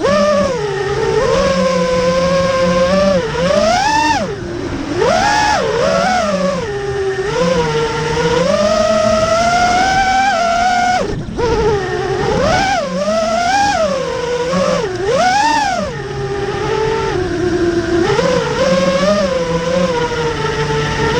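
FPV quadcopter's brushless motors and propellers whining, the pitch sweeping up and down sharply and repeatedly as the throttle is punched and eased, with a short drop-out about eleven seconds in.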